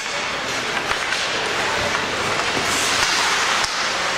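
Steady noisy din of a game in a large hall, with a few faint knocks.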